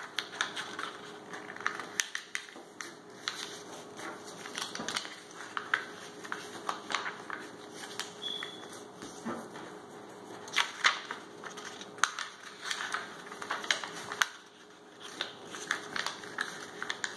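Sheet of paper being folded by hand and its creases pressed flat on a tabletop: irregular paper crackling and rustling with many short sharp clicks.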